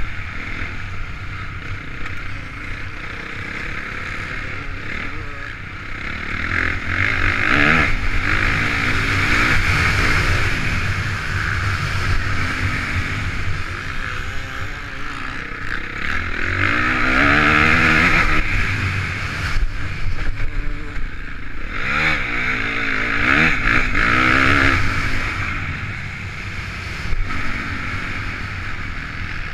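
Honda CRF450 motocross bike's single-cylinder four-stroke engine revving up and down as it is ridden round a dirt track, heard from onboard. It swells several times under hard acceleration, loudest around the middle and again in the last third.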